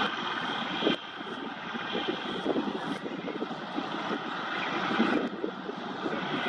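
Armoured tank running in the display arena: a dense, fluctuating engine noise. A brief knock comes a little under a second in.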